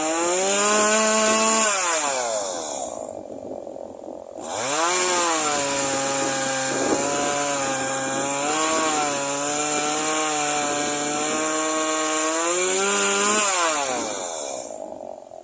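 Stihl two-stroke chainsaw revving up, dropping back after about two seconds, then running at high revs again for about ten seconds, its pitch sagging and recovering several times, before winding down near the end.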